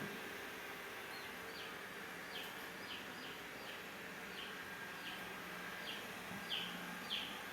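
Xiaomi S20+ robot vacuum running with a steady low hum, while a bird chirps over it: short falling chirps, about two a second, louder near the end.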